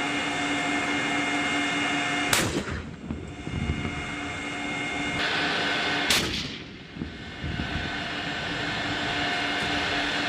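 M1 Abrams tank's gas-turbine engine whining steadily, broken by two main gun shots about four seconds apart, each a sharp blast trailing off into a low rumble.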